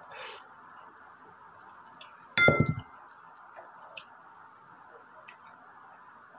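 A drinking glass clinks once against a hard surface about two seconds in, with a brief ringing tone. Faint wet clicks of eating by hand and mouth come and go around it.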